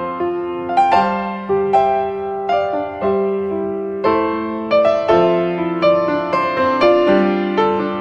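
Background piano music: a gentle melody of notes struck about twice a second, each ringing and fading over lower held notes.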